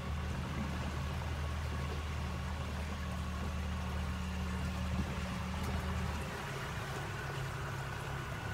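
Small motorboat's engine running steadily under way, with water rushing along the hull; the engine note drops and changes about six seconds in.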